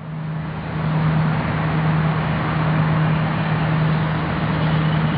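Diesel engine of a log loader running steadily, with a constant low hum under a broad mechanical noise that swells over the first second and then holds.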